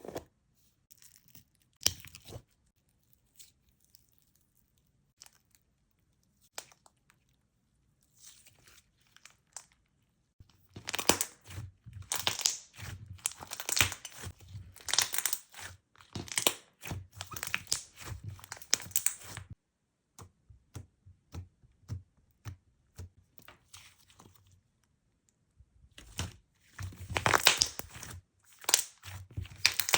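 Slime squished and stretched by hand: scattered small clicks and pops, with two long runs of dense, rapid crackling, one starting about a third of the way in and lasting about nine seconds, another shorter one near the end.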